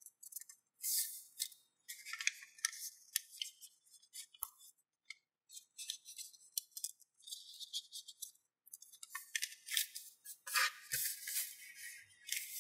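Sheet of origami paper rustling and crackling in the hands as it is folded, opened and creased, in a string of short crisp bursts. It pauses briefly about four seconds in and again near eight and a half seconds, and is busiest near the end.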